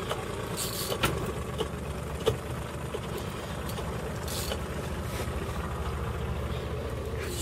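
Boat engine running steadily with an even low throb, a little louder from about a second in, with a few sharp knocks early on.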